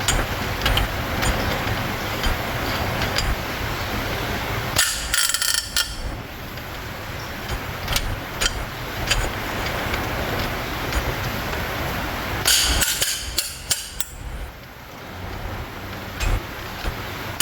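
Metal hand tools clinking and knocking on engine parts over a steady workshop background noise, with two clusters of short, sharp rattling bursts, about five seconds in and again about twelve seconds in.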